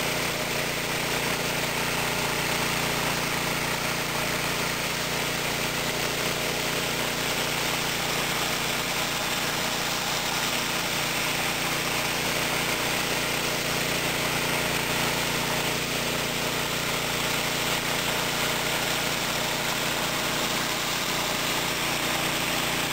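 Pressure washer's engine running steadily, with the hiss of a rotary flat surface cleaner spraying water onto concrete.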